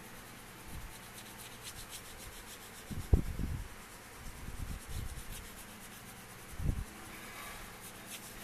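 Pencil shading on paper: quick scratchy rubbing strokes, with a few dull low thumps, the loudest about three seconds in.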